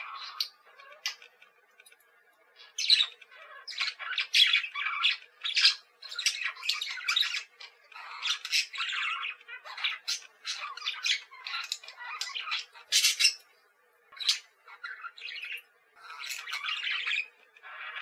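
Male budgerigar warbling and chattering: rapid runs of chirps and squawks broken by short pauses, one about a second in and another near the fourteen-second mark.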